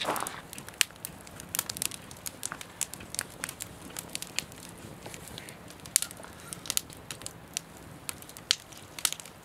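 Carving knife slicing through the crusty bark of a smoked beef brisket on a wooden cutting board: irregular small crunches and crackles.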